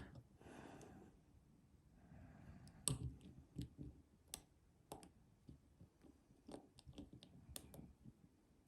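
Faint, irregular metallic clicks of a lock pick and tension wrench working inside a Master Lock padlock's keyway, about a dozen scattered ticks, with near silence between them.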